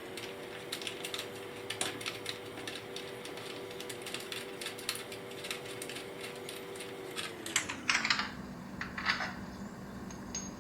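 A power tool's motor spinning up, running steadily with a dense rattle of clicks, then winding down about three-quarters of the way in, as it backs out an exhaust mounting bolt on a scooter.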